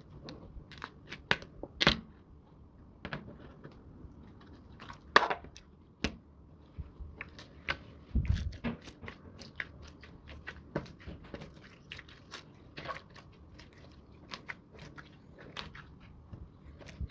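Slime being handled: an irregular string of sharp crackling clicks and pops, with a few louder snaps about two and five seconds in.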